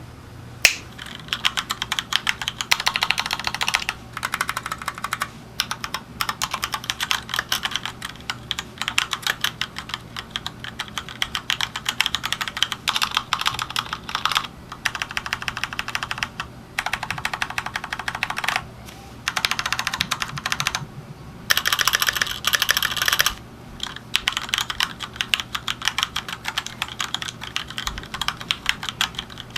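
Typing on a Keychron K2 mechanical keyboard: fast runs of key clicks broken by short pauses.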